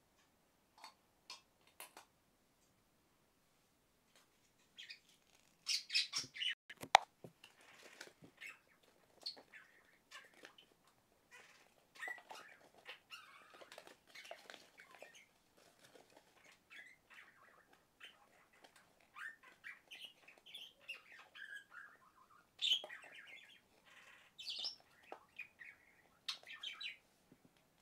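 Irregular chirps and squawks like a small bird's, with scattered sharp clicks and rustles; the loudest click comes about seven seconds in.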